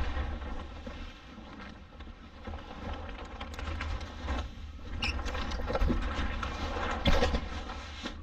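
Wind buffeting the microphone and water rushing along the hull of a Vareo sailing dinghy under way, with a few short sharp slaps or knocks about five to seven seconds in.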